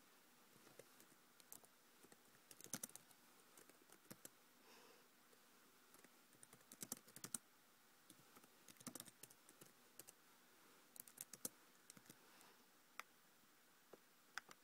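Typing on a laptop keyboard: short runs of key clicks every second or two, with near silence between them.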